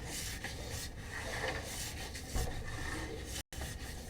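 Sewer inspection camera's push-rod cable being pulled back through the pipe, with a continuous rubbing and rasping and irregular scrapes as it drags. The sound cuts out for an instant near the end.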